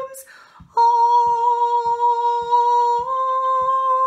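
A woman's solo voice sings the word 'comes', takes a quick breath, then holds one long steady note that steps up slightly about three seconds in. Faint regular ticks, two or three a second, run underneath.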